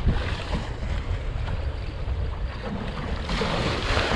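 Wind rumbling on the microphone over water washing around a small fishing boat. About three seconds in it grows louder, with a stronger hiss.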